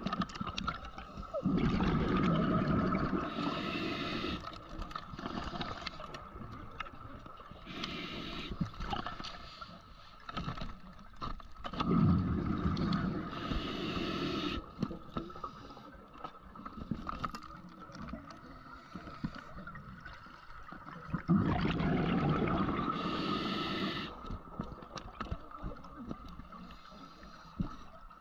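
Underwater scuba breathing: bubbling exhalations through the regulator in three long bursts about ten seconds apart, over a steady high hum.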